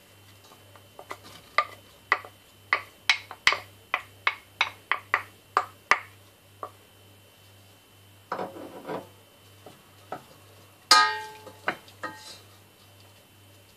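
Wooden spoon knocking chopped onion and garlic off a bowl into a stainless steel pot: a quick run of sharp taps lasting a few seconds, then a short scrape. Near the end the spoon strikes the steel pot with one loud, ringing clink as stirring begins.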